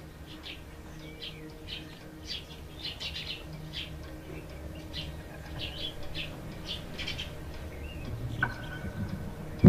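Small birds chirping: many short, high chirps in irregular succession, over a faint low steady hum.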